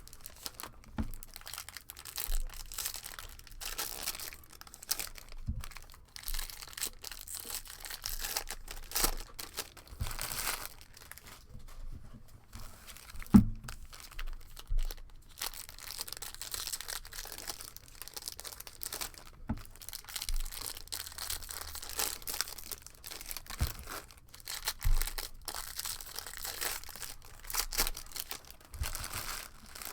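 Crinkling and tearing of baseball-card pack wrappers and rustling of packaging as a hobby box is opened, in irregular bursts with small clicks and one sharp knock about 13 seconds in.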